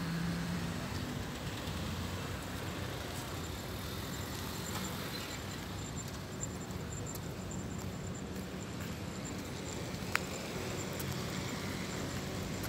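Road traffic: a car's engine close by at the start, then a steady traffic hum, with one sharp click about ten seconds in.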